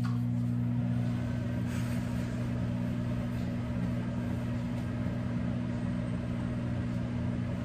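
Microwave oven running with a steady low electrical hum, defrosting a stick of frozen butter.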